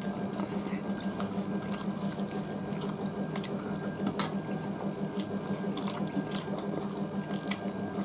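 Wet, close-up eating sounds: fingers mixing rice and curry on steel plates, with chewing and lip-smacking, heard as a string of small clicks and squelches. A steady low hum runs underneath.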